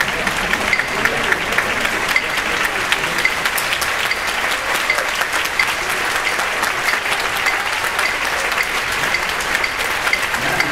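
A large audience applauding steadily: a dense, even patter of many hands clapping.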